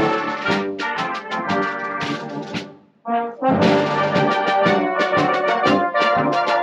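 Brass band playing in a bandstand, with a brief break about three seconds in before the band comes back in loud.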